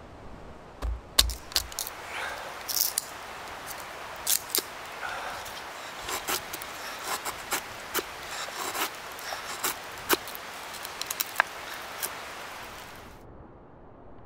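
Small hatchet splitting kindling and shaving curls off thin sticks on a wooden chopping block: a string of irregular sharp knocks and blade scrapes that thins out near the end.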